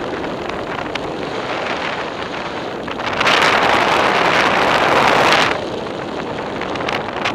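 Wind rushing over the microphone in motorless paraglider flight: a steady rush that rises to a louder gust for about two seconds midway.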